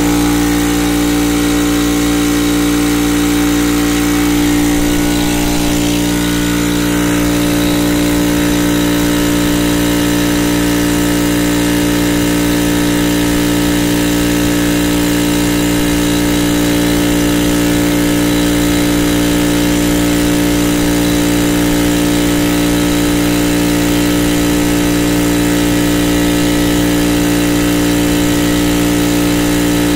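Craftsman air compressor running: its electric motor and pump keep up a loud, steady hum with a strong pitched tone as it fills the tank.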